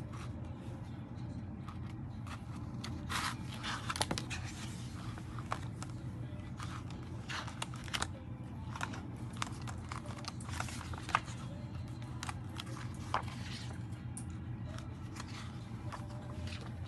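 Paper rustling and crackling as the pages of a wall calendar are handled and flipped over, with scattered sharp paper snaps, the loudest about eleven and thirteen seconds in, over a steady low background.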